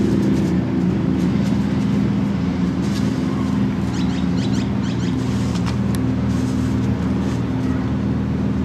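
An engine running steadily, a low hum of several fixed tones. A few short clicks come about four to six seconds in.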